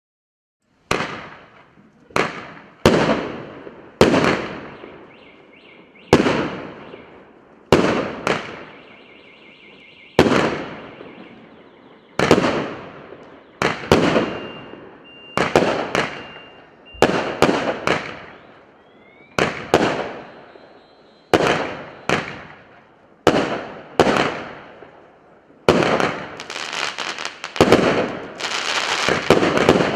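A 48-shot, 0.8-inch consumer fireworks cake firing, starting about a second in. Single shots go off one after another about every one to two seconds, each a sharp bang that trails off in crackle, and near the end they turn into a dense, rapid crackling barrage. A faint high steady tone sounds briefly twice in the middle.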